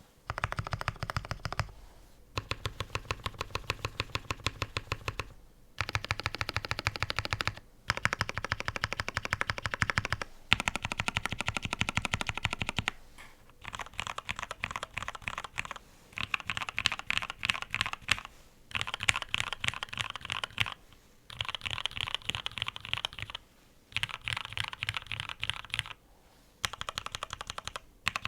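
Fast typing on a Matrix 8X V1.2OG custom mechanical keyboard with lubed, retooled Cherry MX Black linear switches, a top-mounted aluminium plate and CRP Tulip keycaps. The keystrokes come in rapid runs of a couple of seconds each, broken by short pauses.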